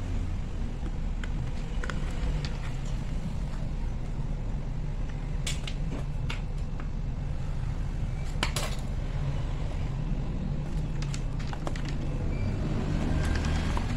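Plastic clicks and cracks from an Acer Z1402 laptop's screen bezel as it is pried loose by hand, its clips letting go, with the sharpest cracks about five and a half and eight and a half seconds in. A steady low hum runs underneath.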